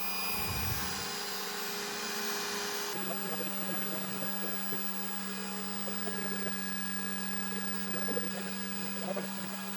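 Electric drill turning the oil pump of an LT1 383 small-block Chevy to prime and pressure-test its oil system, with a steady whirring hum that steps up slightly in speed about three seconds in.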